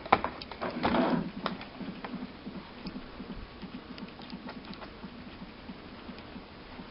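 Sharp plastic clicks and knocks as a laptop battery is fitted and the laptop is handled, strongest in the first second and a half, followed by faint, rapid, irregular light ticking.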